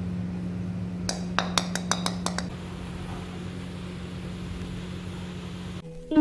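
A quick run of about eight light clinks over a little more than a second, over a steady low hum.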